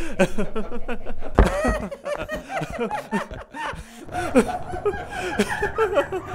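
People laughing uncontrollably in rapid bursts of giggles and snickers, with a single thump about a second and a half in.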